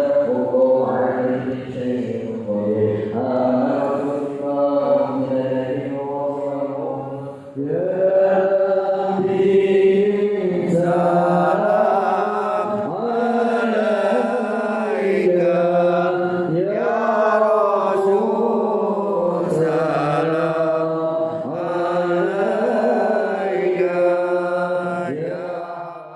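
Islamic devotional chanting: a melodic voice holding long, wavering notes. There is a short break about seven and a half seconds in, after which the chanting comes back louder and runs on until it cuts off abruptly at the end.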